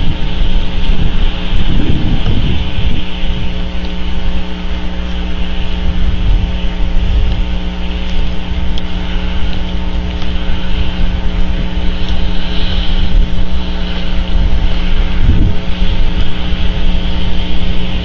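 Steady wind noise and rain on an outdoor microphone: an uneven low rumble with a hiss over it and a constant hum of several even tones underneath.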